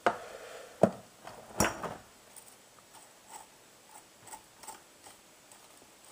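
Hand tools working the bolts on a chainsaw: two sharp metal clicks, then a run of faint light ticks about two a second.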